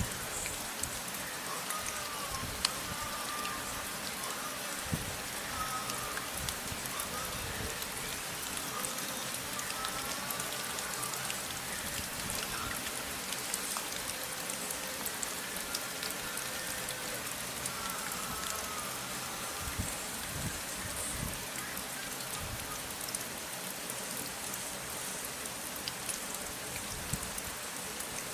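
Steady rain falling, with scattered individual drop ticks and faint wavering tones in the background.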